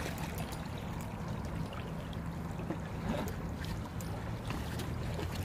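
A steady low motor hum over the wash of sea water against shore rocks.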